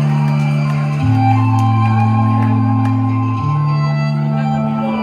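Pop music playing: a slow synth passage of long held bass notes that shift every second or two under steady higher chords.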